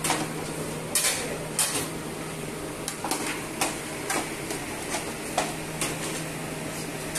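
Plates and serving utensils clinking and knocking irregularly as rice and stew are dished out, over a steady low hum.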